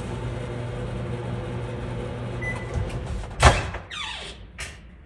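Microwave oven running with a steady hum. A short beep sounds about two and a half seconds in. The hum stops, and the door knocks open about three and a half seconds in.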